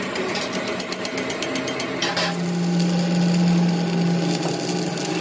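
Metalworking machine running: a rapid train of ticks for about two seconds, then a steady low hum with a higher tone above it.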